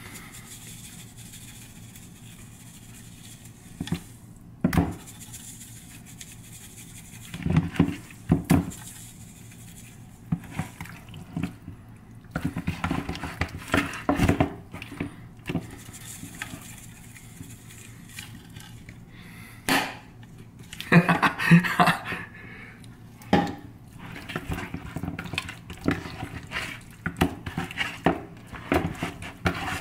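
Irregular knocks and rubbing as raw chicken leg quarters are handled in a plastic mixing bowl, with seasoning shaken over them from a plastic shaker.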